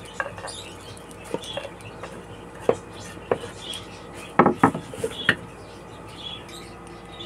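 Scattered light clicks and knocks of a kitchen utensil against a chopping board and plastic tub as chopped chillies are scraped in, with a quick cluster of knocks about four and a half seconds in.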